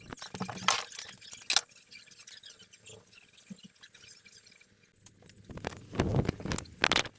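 Small objects being handled and rummaged through: two sharp clicks in the first two seconds, then rustling and clattering from about five and a half seconds in.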